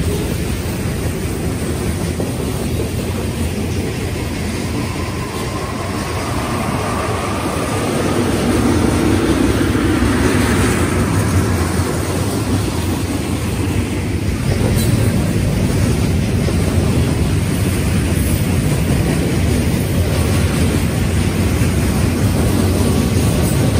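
Freight train cars rolling past a grade crossing: a steady rumble of steel wheels on rail, which gets louder about eight seconds in.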